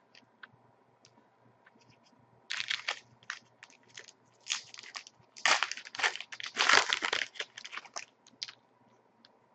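Hockey card pack wrapper crinkling as it is opened, in irregular bursts starting about two and a half seconds in, loudest toward the middle.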